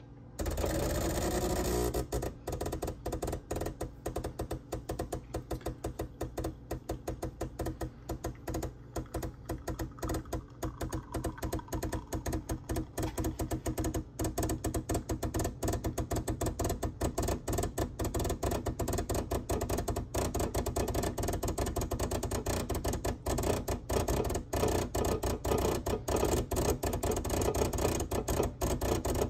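Gaggia Classic Pro's vibratory pump switching on about half a second in and running through an espresso shot. It chatters in a rapid, uneven stream of clicks over a steady low hum, the sign of the pump being pulsed by the Gaggiuino controller to follow a pressure profile.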